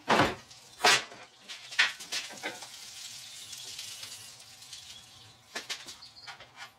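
Sharp metal clinks and knocks from a K24 engine swinging on its engine-hoist chain as it is guided into the engine bay, three loud ones in the first two seconds and a few lighter ones near the end, with a soft hiss in between.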